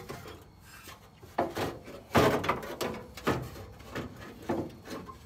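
Scraping, rubbing and knocking of parts being worked by hand inside a steel car door shell, in a run of irregular strokes, the loudest about two seconds in.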